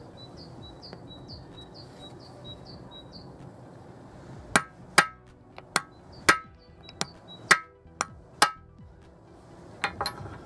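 Hammer blows on a brass drift held against the shaft end of an angle grinder's gearbox, knocking out the driven gear: about eight sharp, ringing strikes, starting about four and a half seconds in, with a few lighter taps near the end. Before the blows, a bird chirps in a quick series, about three chirps a second.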